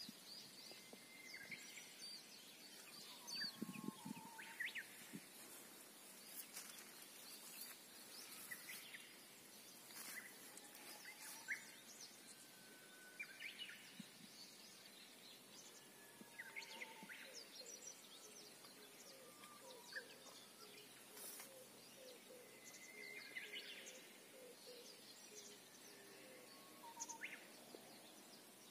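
Faint, scattered bird chirps and calls over a low steady hiss, with a run of short repeated notes in the second half.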